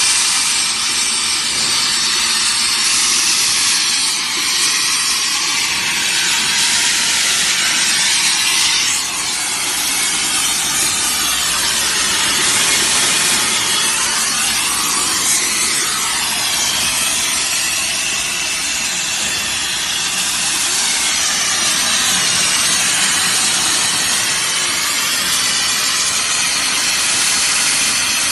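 CNC plasma cutter torch cutting steel plate: a loud, continuous hiss of the arc and its gas jet, its tone drifting slowly as the cut goes on.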